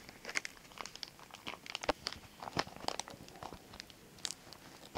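Packaging of a thin mailing envelope being crinkled and handled open by hand, a run of short, irregular crackles.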